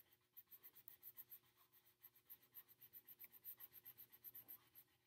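Faint scratching of a green crayon on paper as a small area is coloured in, in short back-and-forth strokes, about four a second.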